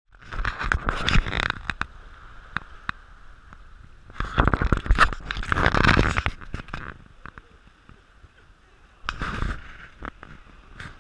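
Scraping and rustling noise in three bursts, full of sharp clicks: the first about a second in, a longer one in the middle, and a short one near the end.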